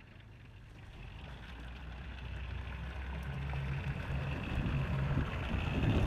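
Farm tractor engine running, growing steadily louder as the tractor drives closer.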